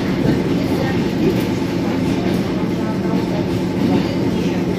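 Steady running noise of a moving suburban electric train heard from inside the carriage: the rumble of wheels on the rails and the carriage.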